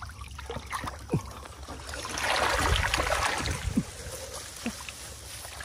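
Water splashing, louder for about a second and a half in the middle, with a few small knocks.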